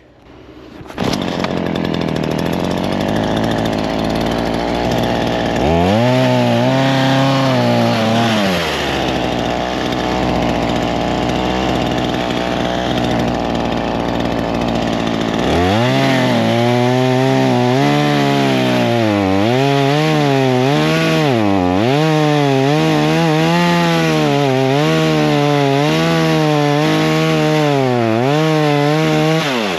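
Chainsaw making a relief cut in a fallen storm-damaged tree. It runs at low speed, revs up briefly about six seconds in, then from about halfway it is held at high revs cutting, its pitch dipping and recovering repeatedly as the chain bogs under load.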